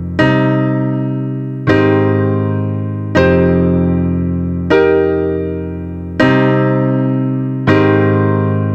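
Background music: slow keyboard chords in a piano or electric piano sound, struck about every second and a half, each ringing out and fading before the next.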